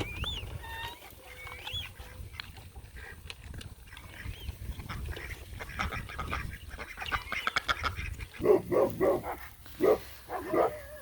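Farmyard animal calls from Maremma and Great Pyrenees puppies and chickens: scattered high squeaks and whines, then a quick run of louder yelping calls from about eight seconds in.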